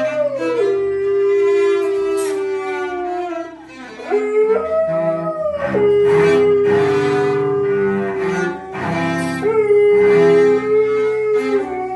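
A husky-type dog howling along to a cello being bowed: three long howls, each sliding down in pitch and then held, over the cello's lower notes.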